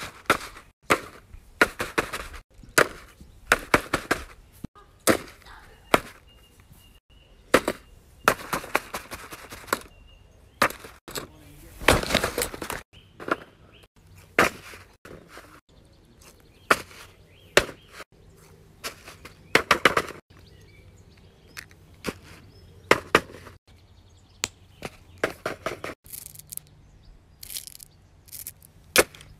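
Fidget toys being handled and played with: a string of short, sharp clicks, pops and crackly squishes in bursts about every one to two seconds.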